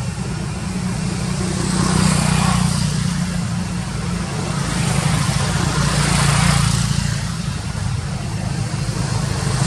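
A steady low motor hum, with a rushing noise that swells and fades a few times.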